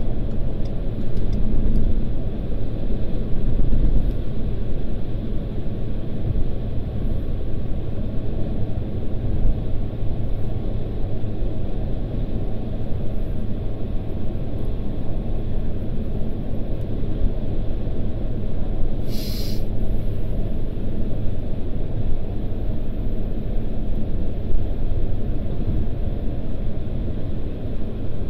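Steady low road and engine rumble inside the cabin of a car driving at speed, with one short hiss about two-thirds of the way through.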